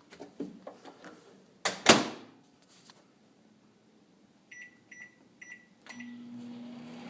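Microwave oven being started: a few small knocks, then the door shut with a loud thump about two seconds in. Four short keypad beeps follow, and near the end the oven starts running with a steady hum.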